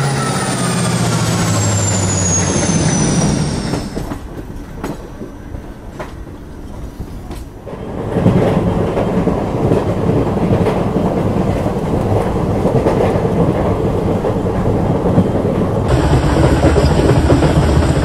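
A diesel locomotive passes close by, its engine drone and a high whine falling in pitch as it goes. Then a train runs over the rails: a few sharp wheel clacks, then from about eight seconds in a loud, steady rumble of wheels on track.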